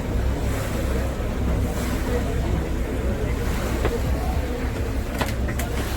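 Wind rumbling on the microphone over the steady wash of harbour water, with a few sharp clicks about five seconds in.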